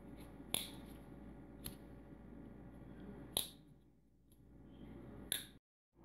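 Spyderco Native Chief folding knife being opened and closed by hand, its back lock giving four sharp clicks spread a second or more apart. The action is smooth again on its freshly polished phosphor bronze washers.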